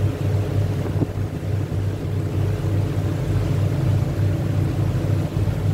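A river cruise boat's engine running steadily, a constant low drone.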